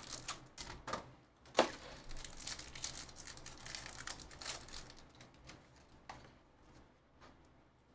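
Foil trading-card pack being torn open and crinkled, with one sharp snap about a second and a half in. The crackling thins out to softer rustling as the cards are handled.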